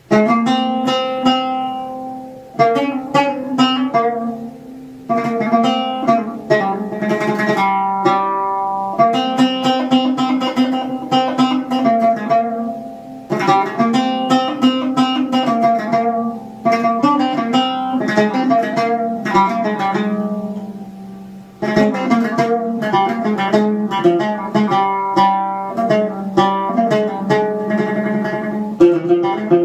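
Modified cümbüş strung with nylon strings and set up for Arabic tuning, played solo: phrases of plucked notes over a steady low note, broken by short pauses where the last notes ring on and fade.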